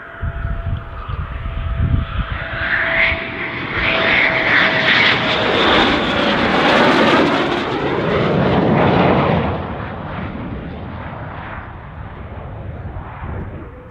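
Eurofighter Typhoon's twin EJ200 jet engines as the fighter passes low on approach with its gear down: a loud jet roar with a whine that slides down in pitch, loudest around the middle, then easing off.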